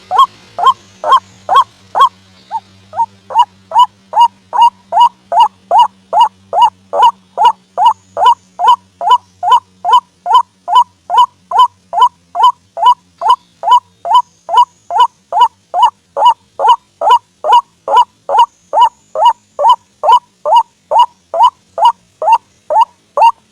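White-breasted waterhen (ruak-ruak) calling: a fast, steady series of short loud calls, about two and a half a second, with a slight break about two and a half seconds in. It is the bird's typical repeated territorial call, used as a lure to draw waterhens to a snare.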